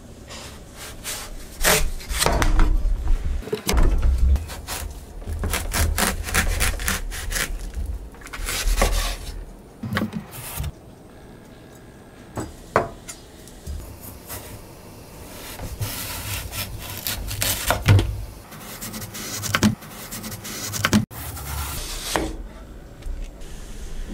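Chef's knife slicing the rind off a whole watermelon on a wooden cutting board: uneven runs of scraping, sawing strokes as the blade works through the hard rind, with a quieter stretch near the middle.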